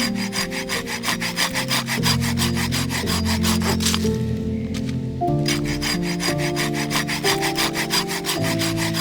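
Hand saw cutting through firewood in quick, even back-and-forth strokes. There are two runs of sawing with a short pause about four seconds in, over background music.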